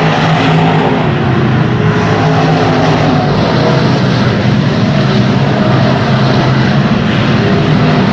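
Stock car engine running at fairly steady revs, its note holding level, over a constant rush of wind and track noise.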